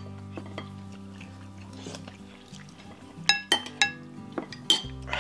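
Metal spoons clinking against ceramic soup bowls: a quick run of three sharp, ringing clinks a little past three seconds in and another near the end, with fainter scrapes between. Soft background music plays underneath.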